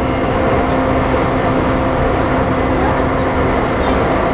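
JR East E235 series 1000 electric train, heard from inside a passenger car while running: a steady rumble of wheels on track, with a steady electric hum from the traction drive that fades in the first seconds.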